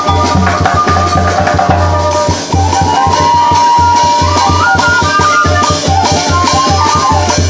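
Loud band music: a steady pulsing bass beat, shaker and drum percussion, and a melody line that steps up and down with one long held note in the middle.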